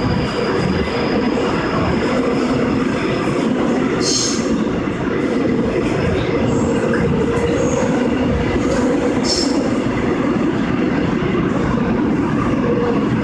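Seoul Line 6 6000-series subway train running through a tunnel, heard from inside the car: a loud, steady rumble of wheels and running gear with a held tone underneath. Two brief high-pitched wheel squeals come about four and nine seconds in.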